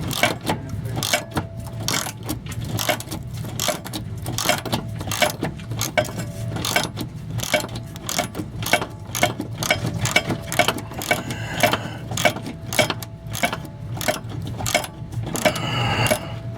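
Socket ratchet clicking in quick, uneven strokes as it backs out a fuel-tank strap bolt, over a steady low hum.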